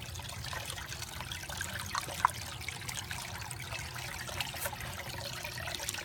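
Water trickling and splashing steadily from a clear tube into a homemade fountain of stacked terracotta plant saucers, with a low steady hum underneath.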